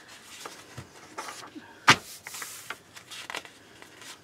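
Paper instruction manual being handled and its pages turned: scattered rustles and light clicks, with a sharp tick about two seconds in followed by a short papery swish.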